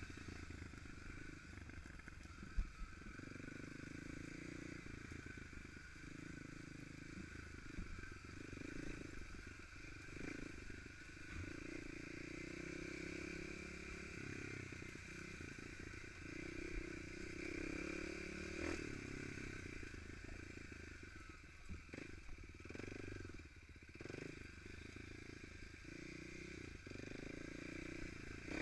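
Dirt bike engine running at trail speed, the throttle opening and closing over and over, with a few knocks and rattles from the bike over the rough ground.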